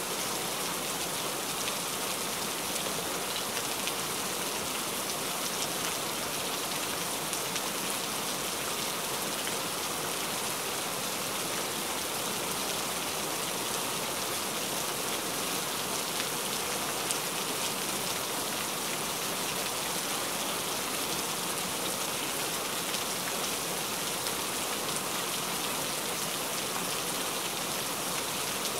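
Heavy rain falling steadily: a dense, even hiss of rain with a fine patter of individual drops.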